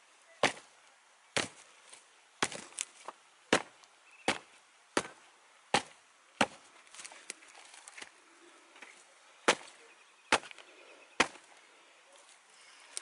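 Sharp knocks and cracks of stone and dry wood, about a dozen at roughly one a second with a short gap past the middle, as rubber boots step about on loose flat stones and sticks.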